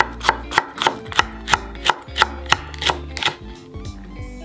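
Chef's knife slicing a green pepper into thin strips on a bamboo cutting board: steady knocks of the blade on the board, about three a second, stopping about three and a half seconds in.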